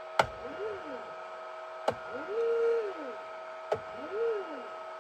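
Small RGBW LED moving-head light moving its head: three sharp clicks about two seconds apart, each followed by a short motor whine that rises and falls in pitch as the pan/tilt stepper motors drive the head. The middle whine holds at the top for about half a second, over a steady high hum.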